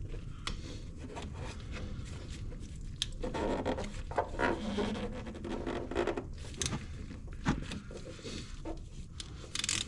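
Hand tools being worked on drain plugs: uneven rubbing and scraping with scattered light clicks of metal on metal.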